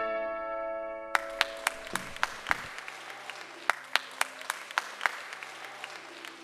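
Music dying away, then a small crowd clapping from about a second in, separate claps about three or four a second, growing fainter.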